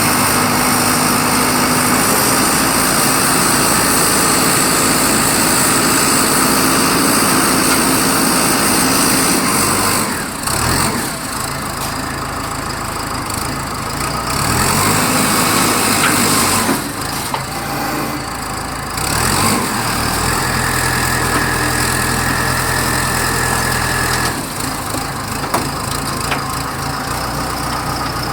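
Engine of a 3.5 m³ self-loading concrete mixer running steadily, its pitch and loudness shifting several times as the engine speed changes.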